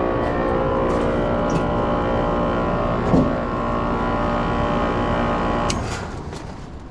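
Air-conditioning equipment running with a steady, many-toned electric hum, then a few clicks near the end as it shuts down and fades. Bumped thermostat control wiring has sent the system switching erratically.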